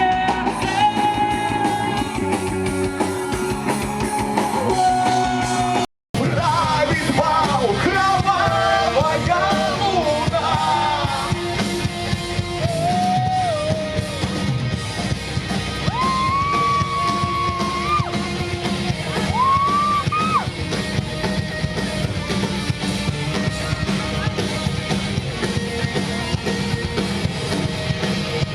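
Rock band music with electric guitars and drums, no lyrics sung. About six seconds in the sound cuts out for a moment, and a new passage starts with lead guitar bending and sliding between notes.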